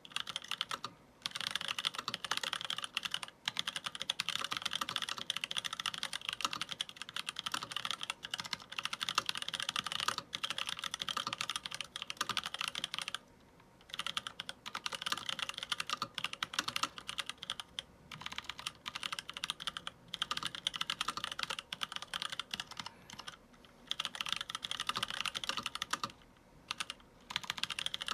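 Continuous fast typing on a mechanical keyboard with unlubed NovelKeys Blueberry tactile switches and PBT keycaps: dense runs of crisp key clacks broken by brief pauses, the longest about 13 seconds in.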